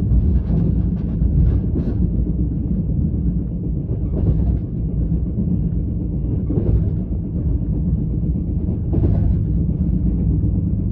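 A steady low rumble, with brief rushes of wind noise on the microphone every couple of seconds.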